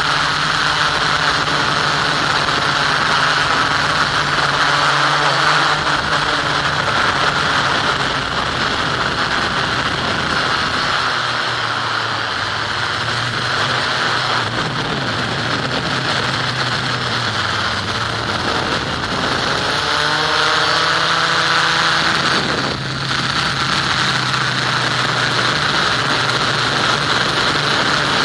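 Onboard audio of an FPV model aircraft in flight: its motor and propeller run steadily under a rushing wind noise. The pitch shifts a few times, with a brief dip about 23 seconds in.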